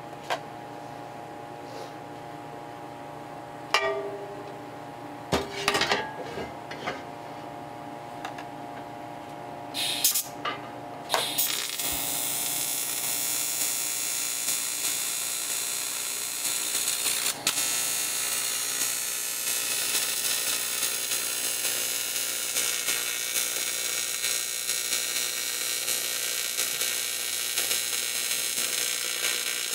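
TIG welding arc: a steady hum with a few short sharp bursts and clicks, then from about eleven seconds in a continuous hissing, buzzing arc as the filler rod is fed into the gas-cap weld.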